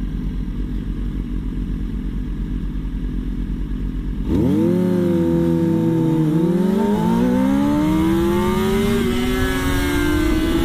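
Sport motorcycle engines idling, then about four seconds in a bike launches hard: the revs dip as the clutch bites, then climb as it accelerates, with a gear change about six seconds in, before levelling off near the end.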